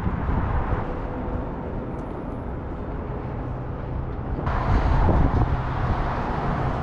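City street ambience: a steady rumble of traffic with wind on the microphone. About four and a half seconds in, the sound changes abruptly to a brighter, nearer mix.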